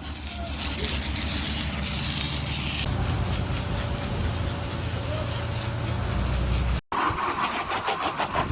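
An engine running steadily, with a hissing spray over it for the first three seconds or so. Near the end the sound cuts out for an instant and a lighter mechanical noise follows.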